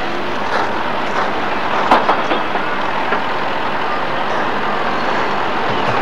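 Steady outdoor background noise picked up by a camcorder microphone, with a few short clicks about two seconds in.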